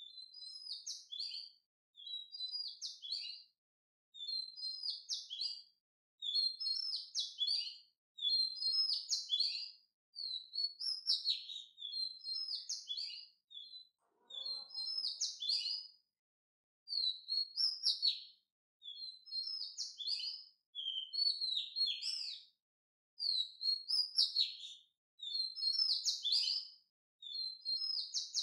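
A bird chirping in short, high twittering phrases, one about every two seconds, with silence between them.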